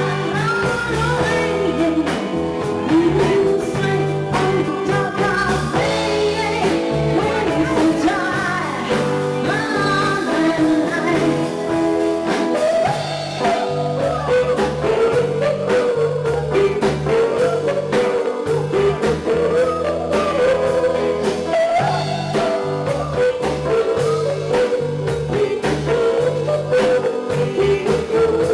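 Live soul band playing: a woman sings lead over electric guitar, electric bass and a drum kit.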